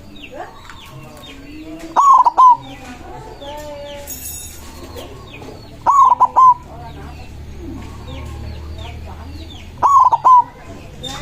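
A white zebra dove (perkutut) sings: three loud phrases, each a quick run of short cooing notes, come about four seconds apart. Many small birds chirp throughout.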